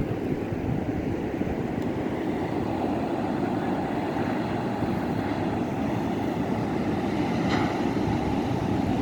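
Steady low rumble of ocean surf and wind on the microphone.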